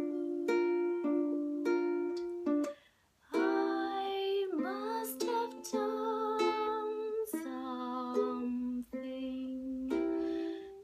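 Ukulele strumming a run of chords with a woman's voice singing along, with a brief pause about three seconds in.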